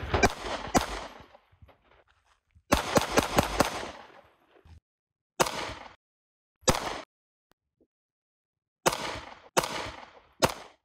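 Semi-automatic pistol shots, each with a short echoing tail: a quick string of about four shots, then a faster string of about five, then single shots and a closing run of four. The sound cuts off abruptly between groups where separate clips are joined.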